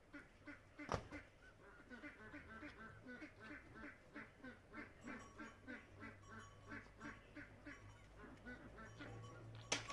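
Faint farmyard fowl calling in a quick run of short, duck-like calls, several a second. A sharp thump comes about a second in.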